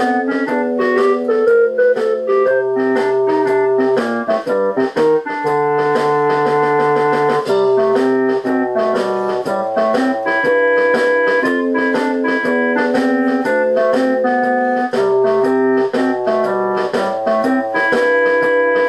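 Background music on an electronic keyboard: a melody of clear held notes over a bass line, steady and unbroken.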